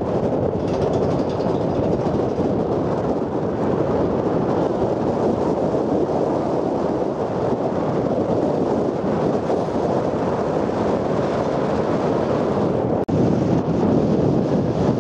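Heavy wind buffeting on the camera microphone: a loud, steady rushing noise that masks everything else. The noise drops out for an instant about thirteen seconds in.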